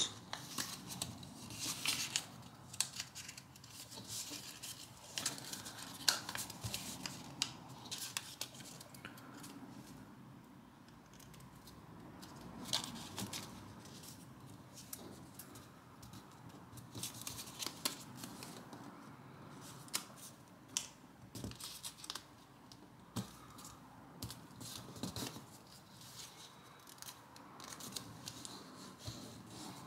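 Square of origami paper being folded and creased by hand: crisp rustles and crackles of paper in irregular bursts, with quieter stretches between.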